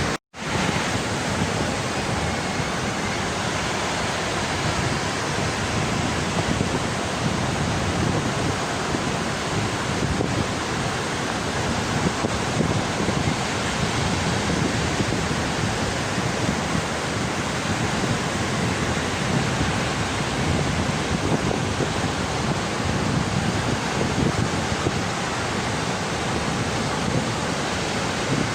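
Sea surf washing continuously onto a beach, a steady full rushing noise with no pauses, after a momentary dropout right at the start.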